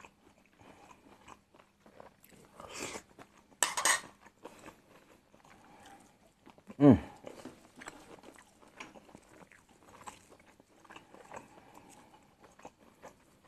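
Close-up chewing and mouth noises of a man eating stir-fried angled luffa with egg. There are two loud slurping sucks about three and four seconds in, and a short voiced grunt falling in pitch about seven seconds in.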